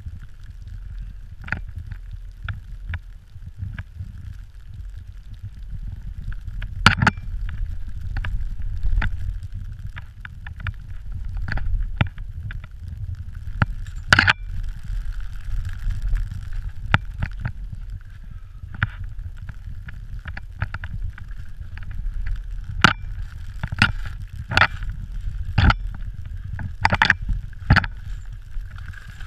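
Skis running through deep powder, heard as a muffled low rumble that swells and eases through the turns, with sharp knocks and clicks at irregular intervals, the loudest about seven and fourteen seconds in and a cluster near the end.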